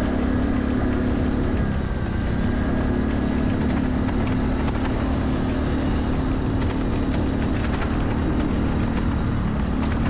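Steady wind and road noise while riding along a paved road, with a low steady hum underneath.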